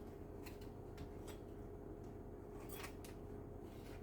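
Quiet room tone with a steady electrical hum and a few faint, brief clicks.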